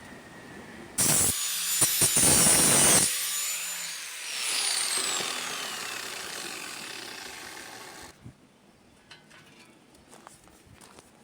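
A power tool runs loudly for about two seconds, then is switched off and winds down with a falling whine over several seconds; a few light taps and clinks follow.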